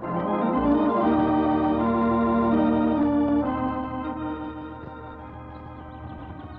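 Organ music bridge marking a scene change in a radio drama: sustained chords that shift a few times, then fade down through the second half.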